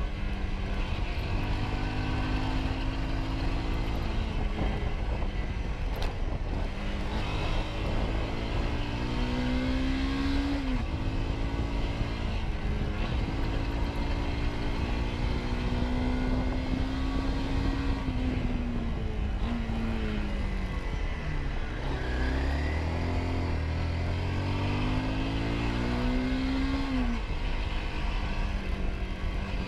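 Motorcycle engine pulling hard through the gears. Its pitch climbs and then drops several times as it shifts, over a steady rush of wind.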